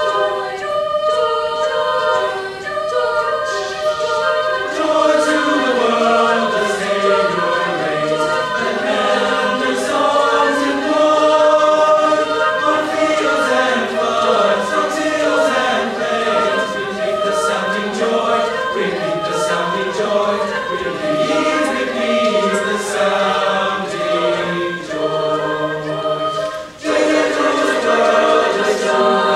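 High school choir singing in several harmony parts, with a brief break about three-quarters of the way through before the voices come back in together.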